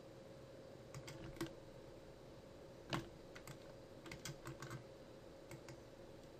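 Computer keyboard and mouse clicking: about ten irregular, scattered taps, the sharpest about three seconds in, over a faint steady hum.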